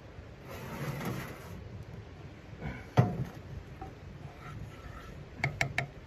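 A frying pan and a stainless kettle being shifted about on a steel wood-stove top: a scrape about half a second in, a sharp knock at about three seconds as one is set down, and several quick, light metallic clinks near the end.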